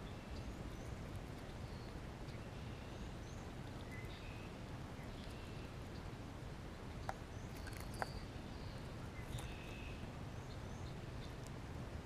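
Steady low outdoor background noise with faint, short bird chirps scattered throughout, and two sharp clicks about seven and eight seconds in.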